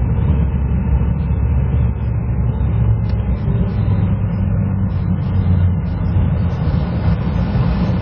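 Steady low rumble of a car's engine and tyres heard from inside the cabin while driving on a snowy road.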